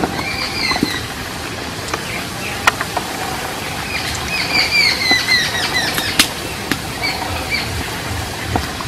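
Nimki dough frying in hot oil in an iron karahi, a steady sizzle, with a few sharp clicks of a slotted spoon against the wok. Babblers chatter over it in bursts of short falling notes, just after the start and again from about four to six seconds in.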